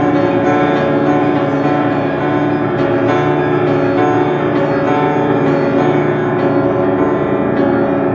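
Piano playing a slow passage of a classical art song: chords struck every half second to a second, each ringing on into the next.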